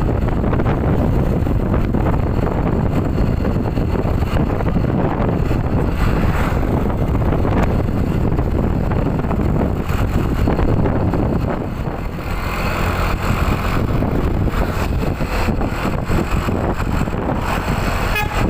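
Heavy bus engine running steadily amid road noise, with a brief dip in level about twelve seconds in.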